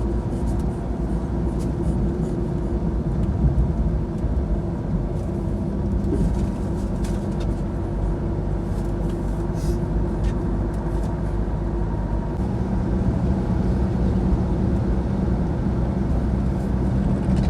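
Steady engine drone and road noise of a vehicle driving along a road. The low engine hum grows a little stronger about two-thirds of the way through.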